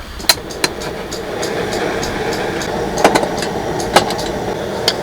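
Portable gas camping burner lit and running with a steady hiss that swells over the first second, with a few sharp metal clicks of cookware or the igniter.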